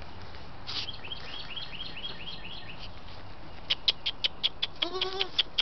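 A small bird sings a quick run of high chirps, followed by a string of sharp clicks about five a second; near the end a goat kid gives a short bleat.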